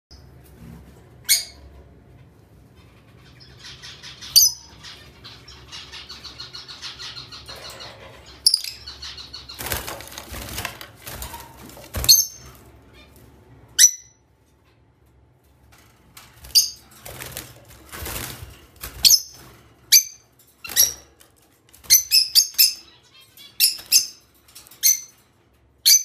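Rose-ringed parakeets giving short, shrill screeches. They come singly every few seconds at first, with a rapid chattering stretch and a rustling burst in between, then in quick runs of several calls in the second half.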